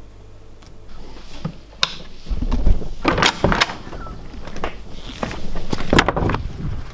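A door being handled: a run of sharp knocks and clatter over several seconds, with a low rumble of handling noise about two and a half seconds in.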